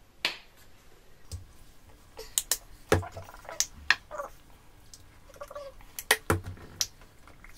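Plastic acrylic paint tubes being handled on a table: scattered sharp clicks and knocks as tubes are picked up, set down and their caps worked, the loudest about three and six seconds in, with a couple of short squelches of paint squeezed from a tube.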